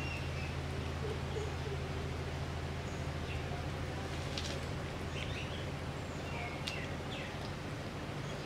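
Outdoor ambience: a steady low hum and hiss, with short high bird chirps scattered through and a few faint clicks.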